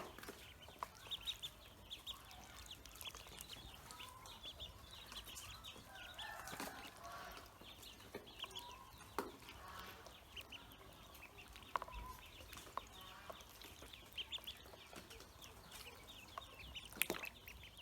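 Pekin ducklings peeping in a busy, high-pitched chatter of short calls, with scattered sharp clicks.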